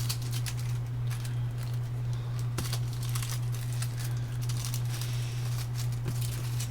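Small scattered clicks and crinkling from electronic components, small capacitors, being handled and sorted, over a steady low hum.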